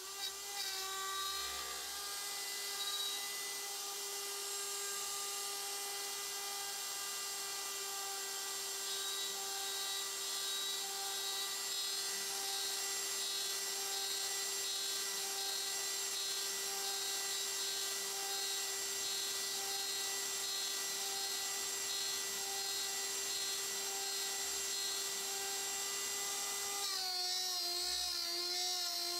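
CNC router spindle at 24,000 RPM driving a Datron single-flute carbide end mill through aluminum, pocketing at a steady feed: a steady high-pitched whine with a stack of overtones. About 27 seconds in, the pitch begins to waver.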